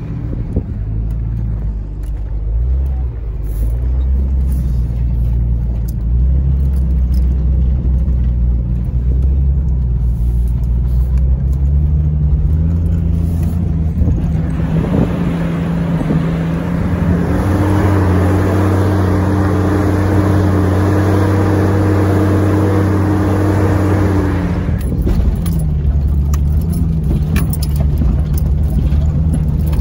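Off-road SUV engines working on sandy desert trails. Around twelve seconds in the engine note rises. From about fifteen seconds in, the Jeep Cherokee XJ's engine, heard from inside the cab, pulls loud and steady under load up a hill, with a rushing noise over it, then eases off about ten seconds later.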